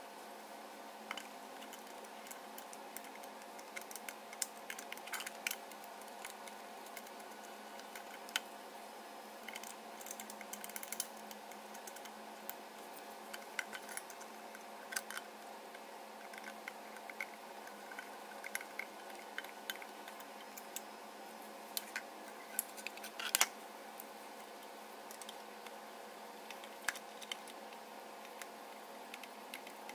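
Hand tools and small metal parts being handled during a repair: scattered light clicks and taps over a steady hum, with one sharper knock about two-thirds of the way through.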